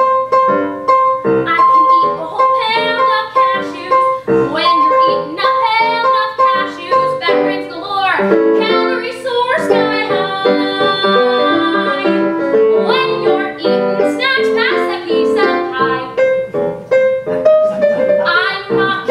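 Piano playing the lively show-tune accompaniment of a musical number, live, with long-held notes through the first several seconds.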